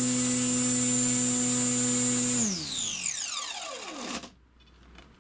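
Tenshock brushless motor with Reisenauer planetary gearbox spinning 13x8 carbon folding propellers at full throttle on a 3-cell LiPo, a steady high-pitched whine under a load of about 31 amps. About two and a half seconds in the throttle is cut and the whine falls in pitch as the motor and propeller spin down, stopping abruptly at about four seconds.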